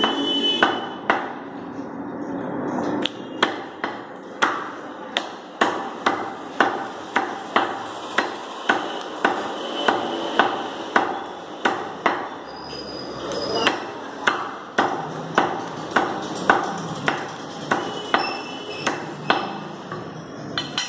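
Butcher's cleaver chopping raw chicken on a wooden log chopping block: sharp knocks of the blade through the meat into the wood, about two chops a second, with a short pause a little past halfway.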